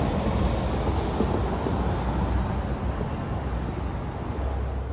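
Steady, dense rumbling noise, heaviest in the low end, slowly getting quieter.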